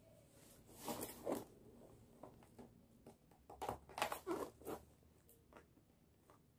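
Faint rustling and tapping of a cardboard product box being handled and opened, a couple of quick knocks about a second in and a denser run of scraping and clicks around four seconds in.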